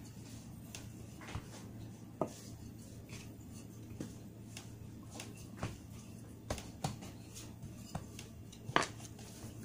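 Wooden rolling pin working dough on a mat on a wooden table, giving irregular light knocks and clicks, the loudest a little before the end. A steady low hum runs underneath.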